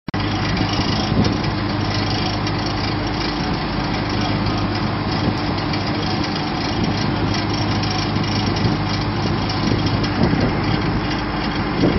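An engine running steadily: an even, unchanging drone.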